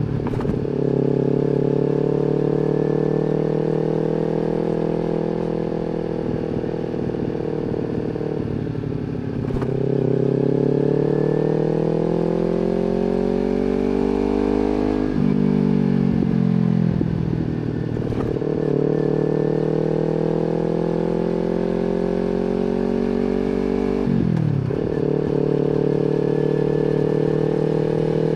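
Kawasaki Z250 motorcycle running through an aftermarket slip-on exhaust while being ridden. The engine note holds, climbs, and drops sharply several times, at about 9, 15, 18 and 24 seconds in.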